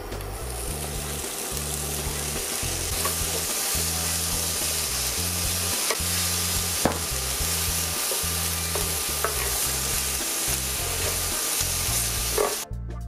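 Bread croutons and ham frying in a pan, a steady sizzle as they are stirred with a wooden spatula, with a few light knocks of the spatula. The sizzle cuts off suddenly near the end.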